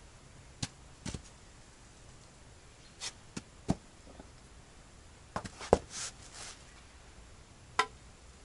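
Scattered knocks and taps, about eight in all, the sharpest a little before six seconds in, followed by a brief scraping hiss: hands-on work setting a foundation support under a wooden terrace frame.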